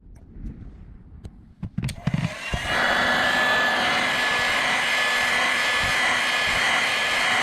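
A few light clicks, then a hot-air blower (heat gun or rework station) switches on about two and a half seconds in and runs steadily, a loud rush of air with a faint high whine, heating the phone to soften the adhesive.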